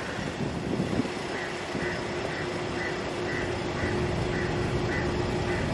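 Steady outdoor background noise, with a low steady hum from about a second in and a faint high beep repeating about twice a second.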